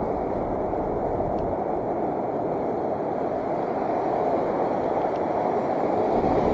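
Steady, muffled rushing of wind and surf at the shoreline, even in level throughout, with no clicks or knocks.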